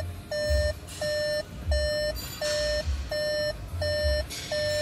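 Electronic beeper sounding a short mid-pitched tone over and over at an even pace, about three beeps every two seconds.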